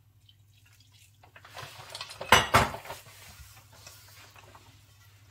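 Kitchen clatter of a dish or utensil knocking against a bowl, with two sharp clinks about halfway through, then fainter scraping.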